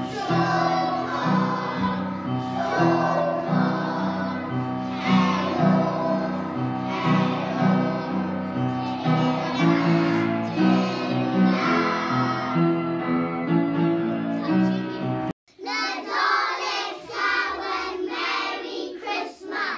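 A class of young children singing a Christmas song together over instrumental accompaniment. It cuts off suddenly about fifteen seconds in, and a group of children's voices follows.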